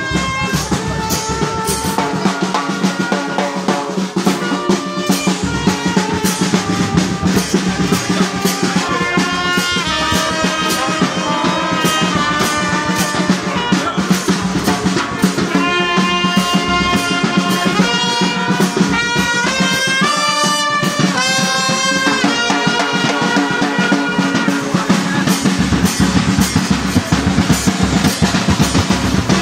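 Live brass band playing a melody over drums, with a steady beat of drum strokes.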